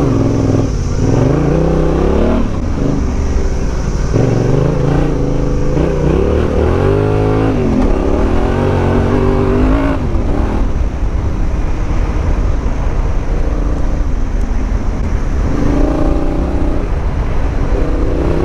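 Yamaha Ténéré 700's parallel-twin engine pulling the bike along a dirt track, its pitch rising and falling several times as the throttle is opened and closed through gear changes.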